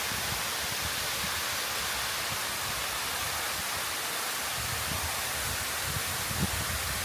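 Kiyotaki waterfall heard from close beneath its plunge: a steady rush of falling water, with the falls' own wind buffeting the microphone in low, uneven gusts.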